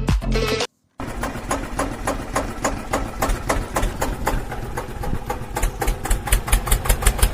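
Music cuts off, and after a short silence an engine sound effect starts running with a fast, even clatter over a low rumble. The clatter grows louder toward the end.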